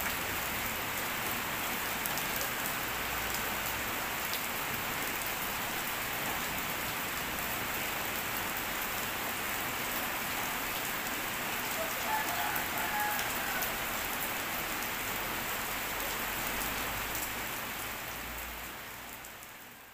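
Steady rain falling, an even hiss with faint scattered drop ticks, fading out near the end.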